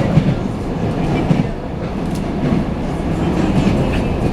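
Wheels of an ED9MK electric multiple unit knocking over the rail joints, heard from inside a carriage over the steady rumble of the running train.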